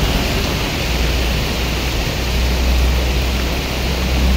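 Heavy rain pouring down on a busy road, a loud steady hiss mixed with car tyres swishing through the water on the wet tarmac. A low rumble underneath grows louder about two seconds in.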